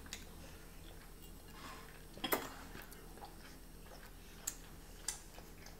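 Quiet room with a few light taps, the loudest a little over two seconds in.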